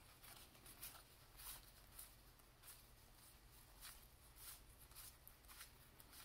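Faint, brief swishes of 1990-91 Pro Set cardboard hockey cards sliding off one another as they are flipped one at a time through a pack, about one or two a second.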